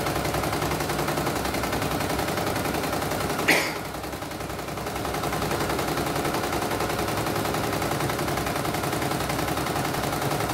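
CNY E900 computerized embroidery machine stitching at speed: the needle bar rattles rapidly and the embroidery arm moves the hoop. The machine is test-running after its mainboard was replaced. About three and a half seconds in a sharp clack is followed by a brief lull, then the stitching builds back up.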